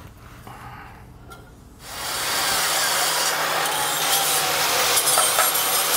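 Angle grinder with a flap disc grinding the end of an aluminum pipe, cleaning up a fish-mouth cope. It starts about two seconds in and runs steadily.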